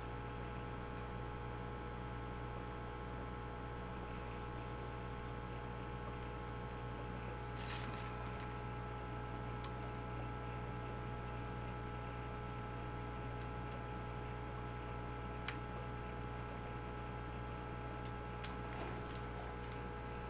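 Steady electrical hum throughout, with a soft click about eight seconds in and another fainter one around fifteen seconds.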